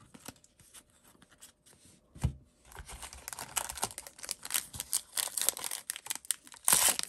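The foil wrapper of a trading card pack being torn open and crinkled by hand. A few light ticks and a soft thump come first; then steady crinkling and tearing start about three seconds in and are loudest near the end.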